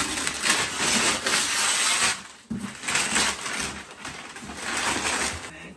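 Wrapping paper being torn and crumpled off a large gift box, in two long rustling stretches with a brief pause about two seconds in.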